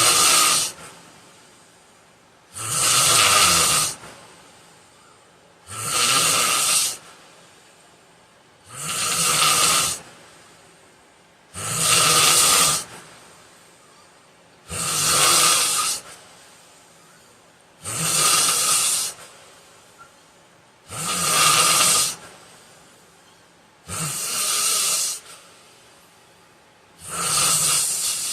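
A man snoring in his sleep: a steady rhythm of loud, hissing snores, one about every three seconds, each lasting about a second, ten in all, with quiet breathing between them.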